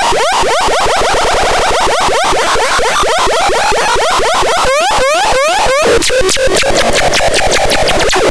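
Electronic synthesizer (SYNTEZÁTOR č 78002) making a rapidly repeating upward pitch sweep, about four rising chirps a second. From about six seconds in it changes to a harsh, noisy buzz chopped into fast pulses.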